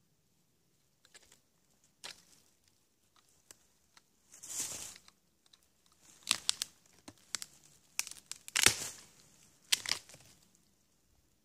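Rotten wood being pried and broken off a decayed stump to get at the fatwood inside: a series of cracks, splintering and tearing, with a longer tearing sound about four and a half seconds in and the loudest crack near the nine-second mark.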